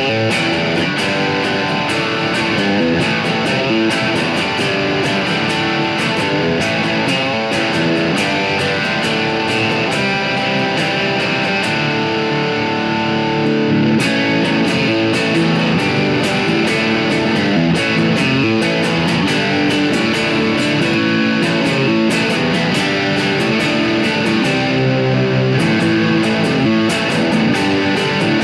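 Schecter Telecaster-style electric guitar played through a tube amp with a little distortion, a continuous run of picked notes and chords.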